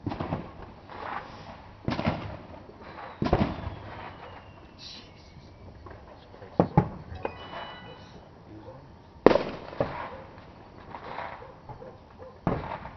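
New Year's fireworks and firecrackers going off around the neighbourhood: a string of sharp bangs and rolling booms, about five loud reports among smaller pops, with a brief high whistle about two-thirds of the way through.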